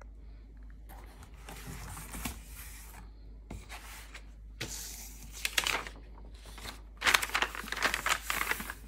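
Cardboard packaging and a paper instruction sheet being handled: rustling and crinkling in short bursts, loudest in the last couple of seconds.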